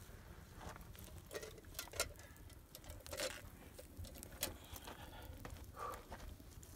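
Open wood fire of dry twigs and sticks crackling, with irregular sharp snaps and pops; the sharpest snap comes about two seconds in.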